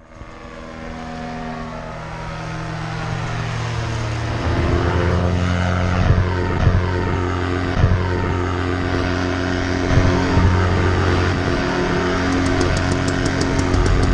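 Paramotor engine and propeller running steadily. The sound fades in at the start and steps up louder about four and a half seconds in.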